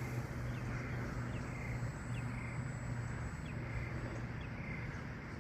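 Outdoor field ambience: short high chirps repeating about once a second over a steady low hum and a faint, steady high-pitched tone.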